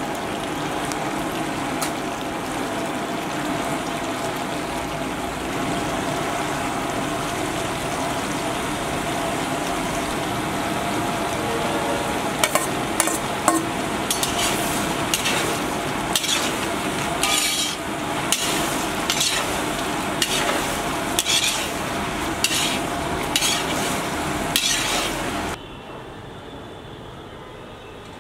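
Chicken pieces frying in a large iron wok (kadai), a steady sizzle. From about halfway, a steel ladle scrapes and clanks against the pan in repeated stirring strokes, roughly once a second. The sound cuts off suddenly near the end.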